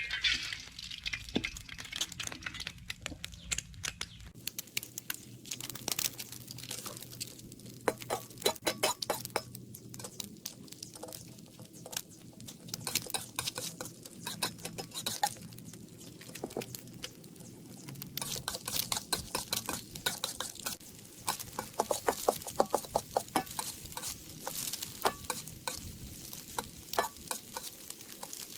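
Eggs frying in hot oil in a pan, sizzling steadily, with a metal spatula scraping and clicking against the pan as they are stirred.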